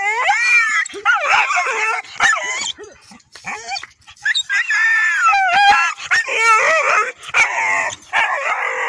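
Dogs howling and whining: wavering high-pitched calls that overlap one another, broken by short yips, with a brief lull about three seconds in.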